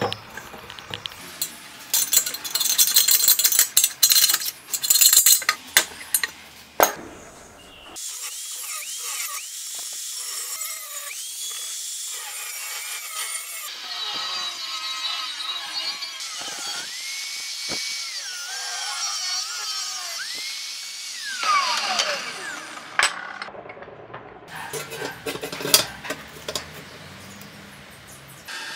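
Metal clanks and knocks as a cast-iron manhole frame is handled against a steel car rim, then an angle grinder cutting into the steel rim, its whine dipping in pitch as it bites and recovering, winding down when switched off. More metal clinks follow near the end.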